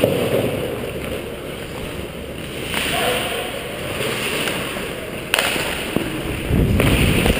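Ice skate blades gliding and scraping across rink ice, with a rushing rumble on the helmet-mounted microphone that swells near the end, and a single sharp knock about five seconds in.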